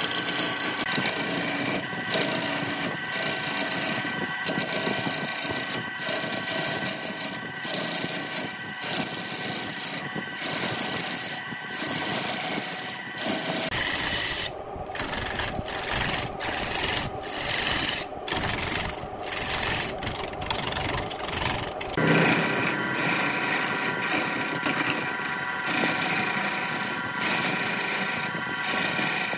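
A lathe gouge cutting into a large wooden blank spinning on a wood lathe: a continuous scraping, rasping cut with shavings flying off, over a steady whine, broken by many brief pauses. For several seconds in the middle the whine drops away and the cutting sounds lower and rougher.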